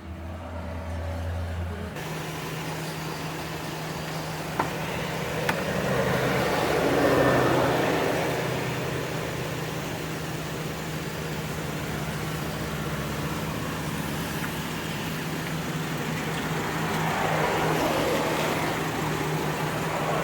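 Motor vehicle engine running with a steady low hum that changes note about two seconds in. Over it come two broad swells of vehicle noise, like traffic passing, one about a third of the way in and one near the end. Two sharp clicks sound around five seconds in.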